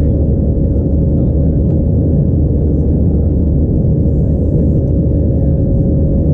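Cabin noise of an Airbus A321-211 in flight, heard from a seat over the wing: a steady loud rumble of its CFM56 turbofan engines and the airflow, with a thin steady hum riding above it.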